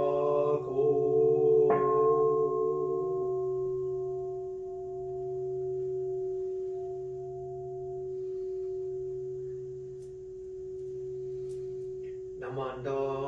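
A large bowl-shaped temple bell (kin) is struck about two seconds in and left to ring out, a long wavering hum that fades slowly over about ten seconds. A chanting voice holds a note until about three seconds in, and chanting begins again near the end.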